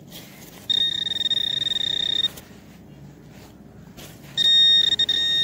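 Pro-Pointer metal-detecting pinpointer sounding a steady high-pitched alarm tone twice, each for about a second and a half, as its tip is held over a buried coin in the soil.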